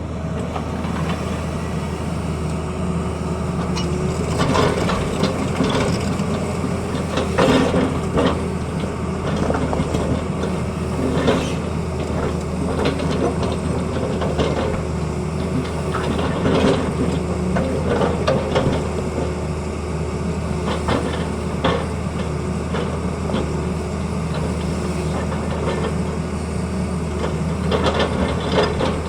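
Tata Hitachi excavator's diesel engine running steadily under load, with repeated short clanks and scrapes as the machine works.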